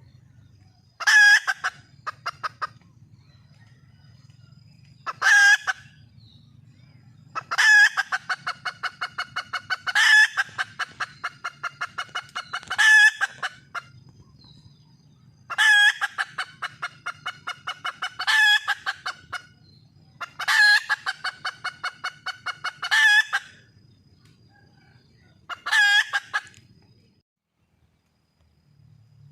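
A wild junglefowl hen calling for a mate. She gives repeated loud calls every few seconds, each a sharp note followed by a quick run of short clucking notes.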